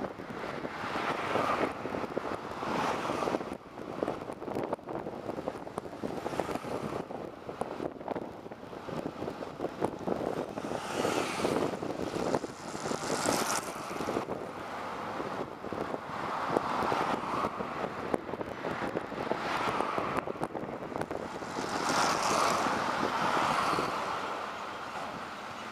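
A bus driving through town: engine and road noise with frequent rattles and knocks, growing louder twice, around the middle and near the end.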